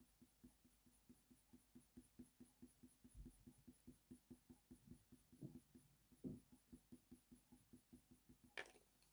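Faint, quick short strokes of a Faber-Castell Polychromos coloured pencil on hot-press watercolour paper, about four to five a second. A slightly sharper scrape comes near the end.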